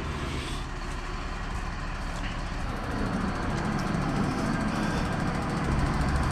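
Diesel engine of a mobile crane running steadily during a lift, growing louder from about three seconds in.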